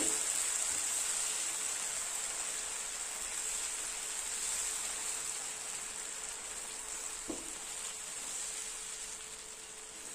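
Food sizzling as it fries in a hot pan: a steady hiss that slowly dies down, with one faint knock about seven seconds in.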